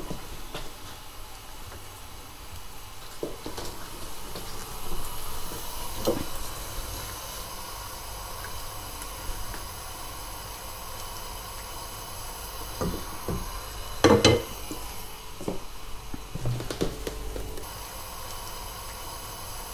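Spiced tomato and pineapple broth simmering in a frying pan on a gas burner, a steady soft hiss, with a wooden spatula scraping and knocking against the pan now and then; the loudest knock comes a little past the middle.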